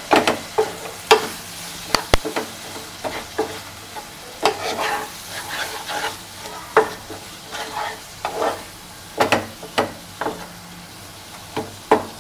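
A spatula stirring chopped tomatoes and spices frying in a non-stick pan: irregular scrapes and knocks against the pan, every half second to a second, over a continuous sizzle.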